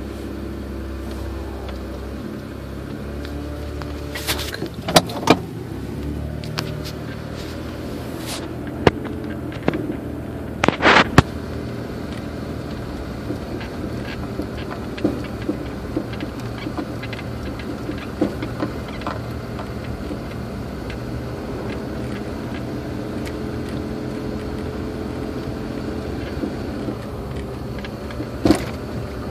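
Inside a Toyota Tacoma pickup's cab while driving slowly: steady engine and road noise with scattered sharp pops and ticks, the popping noise from the truck that new steering rack bushings have not cured, along with a squeak from the driver's seat.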